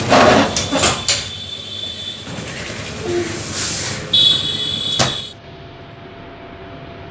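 Electric paper guillotine cutter working through a stack of paper covers: clanking and knocking of the blade mechanism, a high squeal and a sharp knock near five seconds in. It then drops suddenly to a quieter steady hum.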